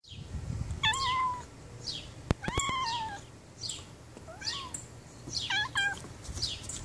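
Cat meowing about five times, the last two in quick succession.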